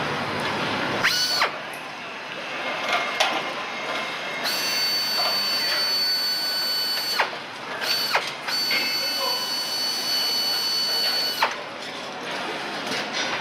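Handheld power tool, such as a nutrunner or power screwdriver, whining at high pitch. It spins up quickly about a second in, then runs in two long runs of about three seconds each with a short burst between them, each starting and stopping sharply.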